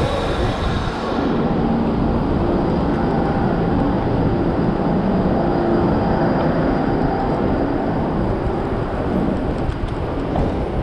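Steady rumble of wind and road noise on the microphone of a camera riding on a moving bicycle, with passing traffic mixed in.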